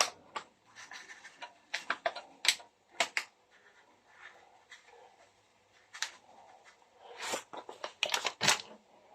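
Irregular light clicks, taps and short rattles of a spice container being handled and shaken out over the vegetables, with quieter pauses between them.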